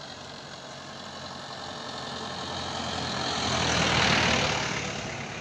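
A truck driving past: engine hum and tyre noise build steadily to a peak about four seconds in, then fade as it goes by.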